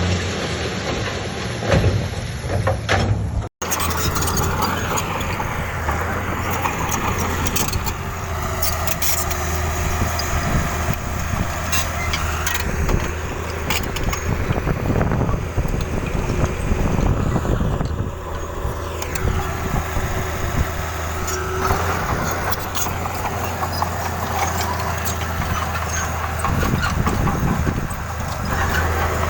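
Heavy diesel construction machinery running steadily at work, with scattered clanks and knocks over the engine drone. The sound drops out briefly about three and a half seconds in.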